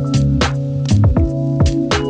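Background music: sustained chords over a steady drum beat.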